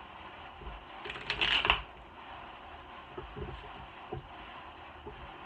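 A deck of tarot cards being shuffled by hand: a short, loud riffle of cards about a second in, then a few light taps as the cards are knocked together. A steady fan hiss runs underneath.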